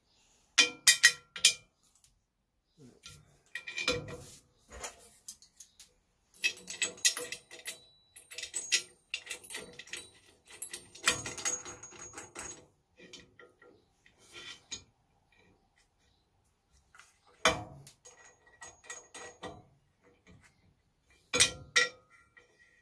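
Metal clutch housing and small wooden blocks clinking and knocking as they are set down and shifted about on a cast-iron drill press table. The sounds come in scattered bursts with silent gaps, with a longer spell of clatter in the middle and two sharp knocks near the end.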